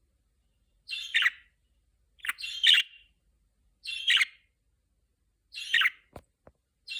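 Budgerigar giving short, raspy chirping calls, about five of them spaced roughly a second and a half apart. Two faint clicks come just after the fifth call.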